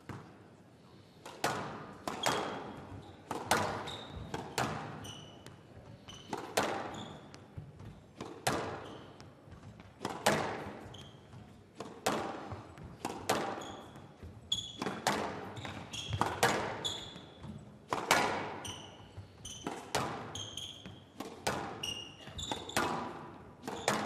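Squash ball struck back and forth in a rally: sharp racket and wall impacts about once a second, echoing in the hall, with short high squeaks of court shoes on the floor between them.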